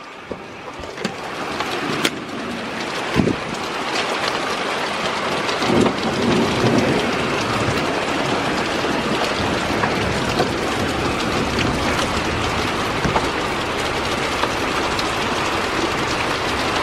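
Heavy thunderstorm rain pouring down hard. The downpour grows heavier over the first few seconds, then holds steady, with a couple of short knocks early on.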